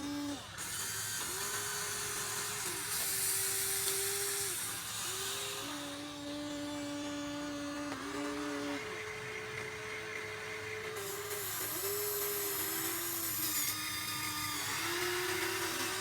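Small electric motors of a Huina 1593 RC excavator whining. The pitch steps up and down every second or two as different motions start and stop.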